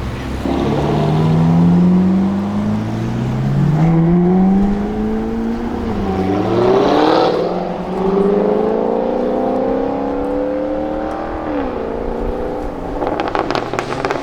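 Jaguar F-Type SVR's supercharged V8 accelerating hard, its pitch climbing through several gears with drops at each upshift. Near the end comes a rapid run of exhaust pops and crackles.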